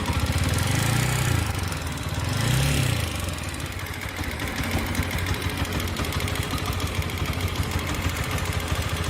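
TVS Apache RTR 160 4V single-cylinder engine idling with a rapid 'kat kat' ticking from the engine, a suspected tappet noise. The throttle is blipped twice in the first three seconds, then it settles back to an even idle.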